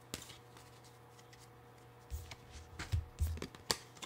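Tarot cards being handled and laid down on a table: a faint flick at the start, then from about two seconds in several sharp taps and slaps of cards.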